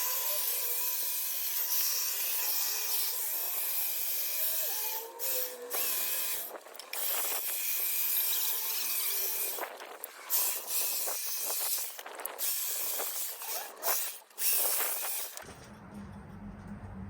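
EGO cordless hedge trimmer running, its electric motor whining over the blade noise, with the trigger let off and squeezed again several times in quick breaks. It stops about a second and a half before the end, leaving a low hum.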